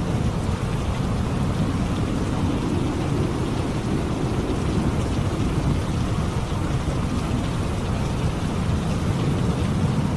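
Steady heavy rain with a low, continuous rumble of thunder underneath.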